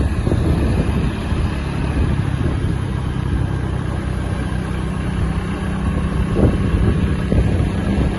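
A motor vehicle's engine hums steadily while driving along, with road and wind noise. Near the end there are two short dull thuds.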